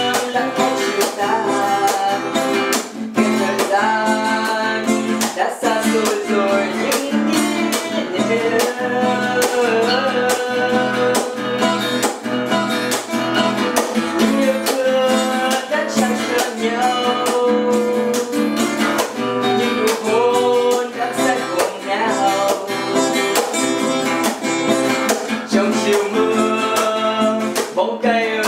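Acoustic guitar played solo, a melody of plucked notes over chords, the notes struck in quick succession without a pause.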